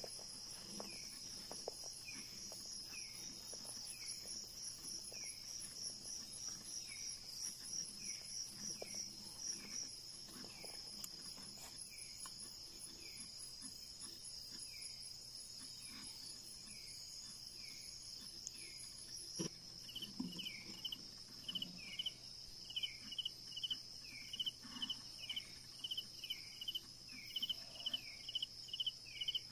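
Night insect chorus of crickets. A steady, high, pulsing trill runs throughout, with a short falling chirp repeating about every second. About two-thirds of the way through, a louder, faster pulsing call joins in.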